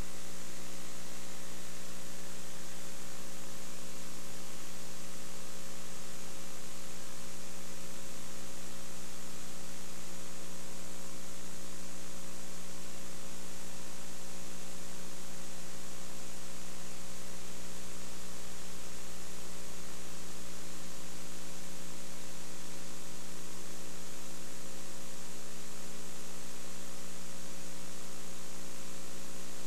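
Steady electrical mains hum with a stack of overtones over an even hiss, unchanging, with no crowd or commentary sound: the programme audio has dropped out, leaving only line hum.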